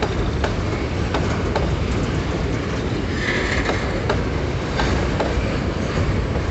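Empty freight boxcars rolling past close by: a steady rumble of steel wheels on rail, with repeated clicks as the wheels cross rail joints and a short high wheel squeal about three seconds in.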